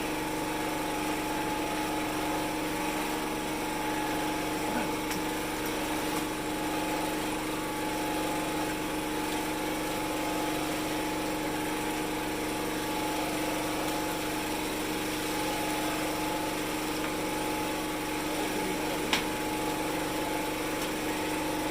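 Small engine running steadily at a constant speed, an even hum that does not change in pitch, with one short click near the end.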